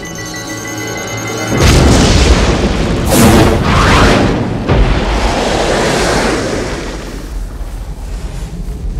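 A huge explosion booms about a second and a half in, swells again a moment later and rumbles away over several seconds. Music plays under it.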